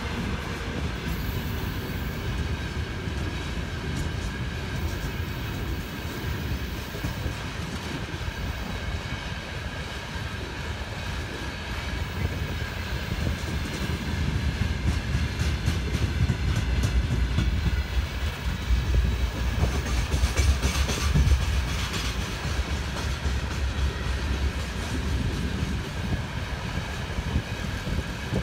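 Train of railway tank cars rolling past: a steady low rumble of wagon wheels with clicking over rail joints, growing louder with a cluster of sharper clacks about twenty seconds in.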